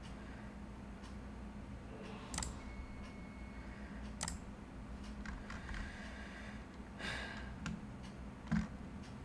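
Scattered clicks and taps of a computer mouse and keyboard at a desk, a few seconds apart, one a short clatter and the loudest near the end with a dull knock, over a low steady hum of room noise.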